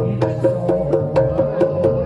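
Reog Ponorogo gamelan music: sharp drum strokes, several a second, over a held melody line and a low sustained tone.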